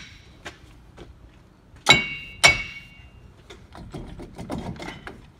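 Hammer tapping on a steel front wheel bearing hub to free it from its seat in the aluminum steering knuckle: two ringing metal strikes about two seconds in, then lighter clinks and knocks.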